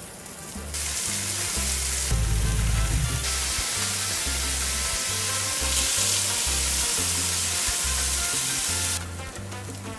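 Chicken breast sizzling on a flat-top griddle (a la plancha). The hiss starts about a second in and stops about a second before the end, over background music with a steady bass line.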